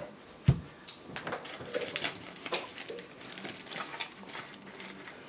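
A thump about half a second in as a plastic Coca-Cola bottle is set down on the table, then aluminium foil crinkling and rustling in a run of short crackles as it is pulled back from a plate of food.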